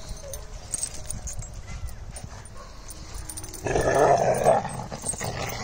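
Dogs scuffling and growling, with a loud, rough burst of about a second about two-thirds of the way in.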